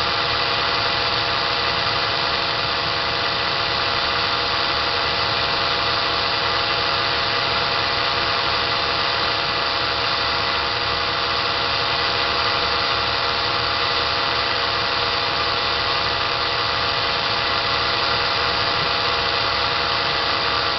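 Makita cordless drill motor running steadily, spinning a magnetic CD-drive hub that winds thread onto a steel Speedy Stitcher bobbin. An even, unchanging whir with several steady tones in it.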